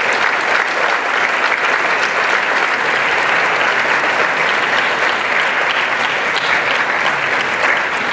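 Audience applauding: many people clapping at once, holding a steady level.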